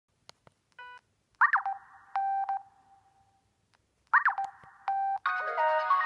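ZTE F107 feature phone being worked through its menu: a couple of key clicks and a short key beep, then a brief electronic alert tone played twice. About five seconds in, a preloaded ringtone melody starts playing from the phone's small speaker.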